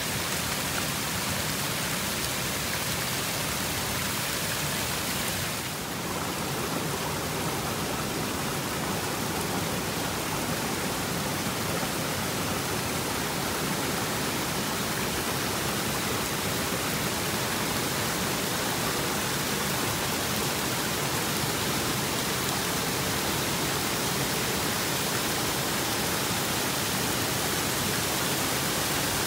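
River water rushing steadily, an even hiss with a brief dip in loudness about six seconds in.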